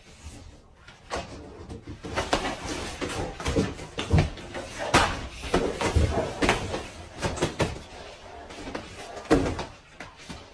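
A string of knocks, thumps and scuffling as people bump against and grapple over cardboard box panels, the loudest knocks about five seconds in and near the end.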